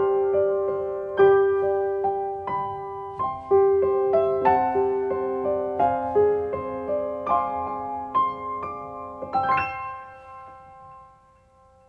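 Solo piano background music: a slow melody of single notes and chords, ending on a final chord near the end that rings out and fades away.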